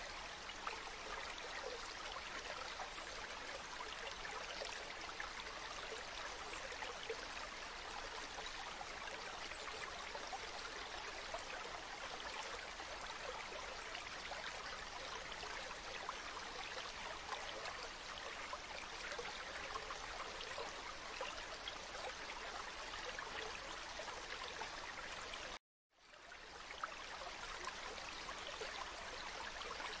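River water flowing: a steady, even rush. Near the end it cuts out completely for about half a second, then fades back in.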